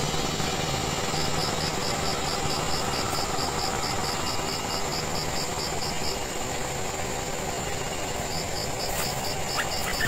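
An insect's high, evenly pulsed chirping, about four pulses a second, over a steady hum and hiss. The chirping stops about a second and a half before the middle and starts again near the end.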